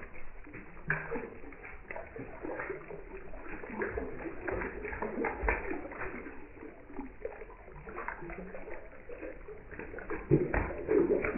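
Water splashing and sloshing as a bucketful of live perch is poured into a lake, the mass of fish thrashing at the surface; the splashes are irregular, with a louder burst near the end.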